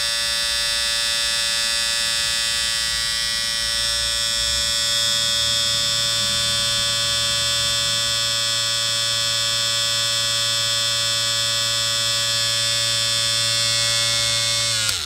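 Electric shaver running with a steady buzzing hum, then switched off right at the end, its pitch dropping as the motor winds down.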